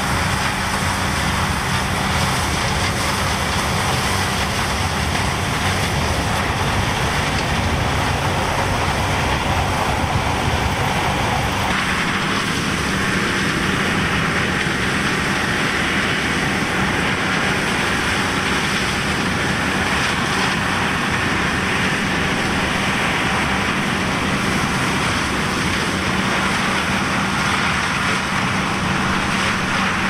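John Deere 318 garden tractor's two-cylinder Onan engine running steadily, now starting and running after its ignition was repaired. About twelve seconds in its sound shifts, the deep low part falling away.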